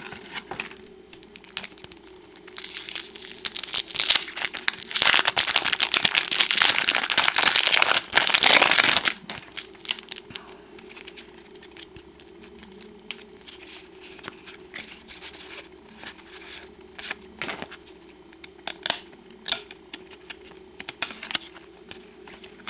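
A baseball card pack wrapper being torn open and crinkled, a loud rustling for several seconds in the first half. It is followed by light clicks and slides of trading cards being handled and flipped through.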